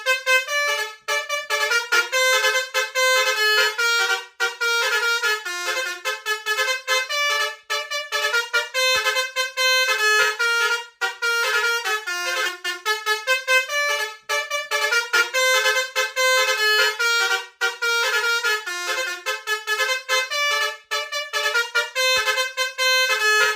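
Bus's multi-tone 'telolet' basuri trumpet horn playing a fast melody, the notes changing several times a second, almost without a break.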